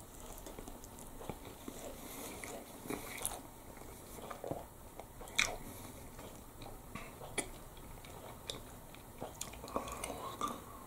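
A person chewing a mouthful of instant ramen noodles, faint mouth sounds with a few short sharp clicks.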